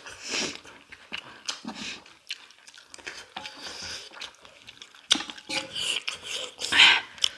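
Close-up eating sounds of chowmein noodles: wet chewing and slurping, with wooden chopsticks clicking against steel plates in short sharp taps. A louder mouth noise comes near the end.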